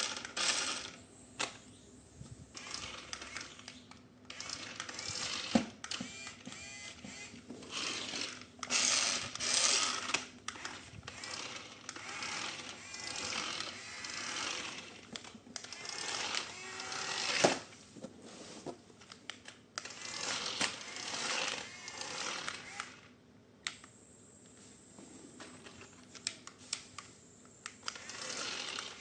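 Toy packaging being handled: irregular rustling and crinkling of plastic and cardboard, broken by sharp clicks and knocks, two of them louder than the rest.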